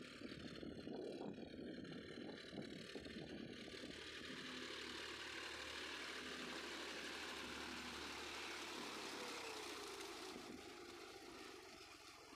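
John Deere 5042D tractor's three-cylinder diesel engine running as it drags a tined cultivator through a flooded paddy field for puddling, with the churning of water and mud. The sound swells as the tractor passes close about halfway through, then fades as it moves away.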